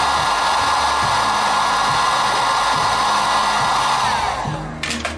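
Electric heat gun blowing hot air onto an ATV wheel knuckle's bearing housing, warming it so the new bearing will slide in. A steady whir of fan and air, then about four seconds in it is switched off and the whine falls away, followed by a couple of clicks.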